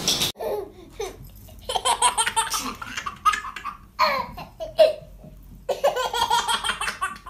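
A baby laughing, in three bursts of belly laughs.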